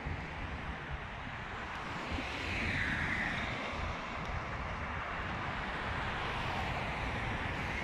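Outdoor background rush of a passing vehicle: a steady noise with low rumble that swells a couple of seconds in and slowly eases off.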